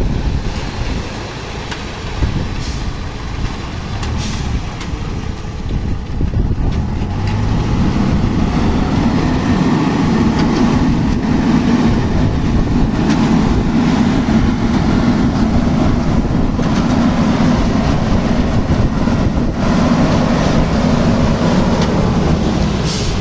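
AIMIX AS-4.0 self-loading concrete mixer's diesel engine running steadily, growing louder about eight seconds in and holding there.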